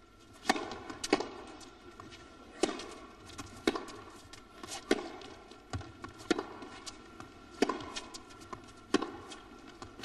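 Tennis rally: a serve about half a second in, then the ball struck back and forth with racquets, each hit a sharp pop roughly every 1 to 1.5 seconds, with fainter knocks between the hits.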